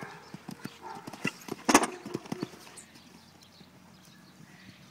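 Hoofbeats of a cantering horse on a sand arena, a run of dull irregular thuds. About two seconds in there is one short, loud burst of noise.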